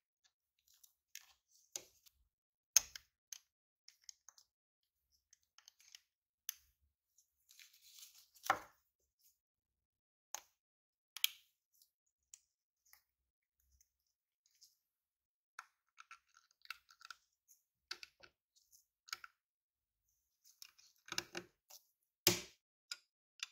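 Plastic scale-model car parts being handled and pressed together by gloved hands: scattered light clicks and taps at irregular intervals, the sharpest about three seconds in, around the middle and near the end.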